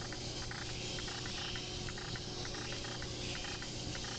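Slow-speed Tomz Knife Massager sharpening machine running with a steady hum and hiss, and a light regular ticking about three to four times a second, as a woodcarving gouge is ground on it.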